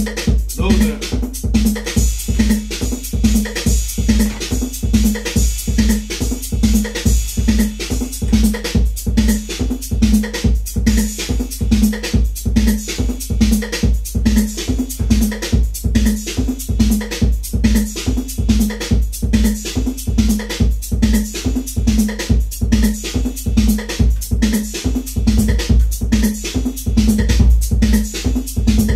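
Live Detroit techno played on a Roland TR-808 drum machine and a Roland Jupiter-6 synthesizer: a steady, evenly repeating drum machine beat with a repeating low synth note pattern.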